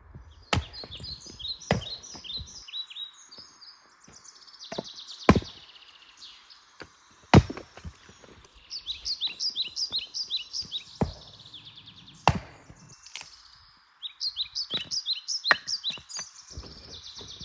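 Firewood rounds being split: about eight sharp strikes of a blade into wood, spaced irregularly a second to a few seconds apart. Between the strikes a small songbird sings repeated trills of high chirps.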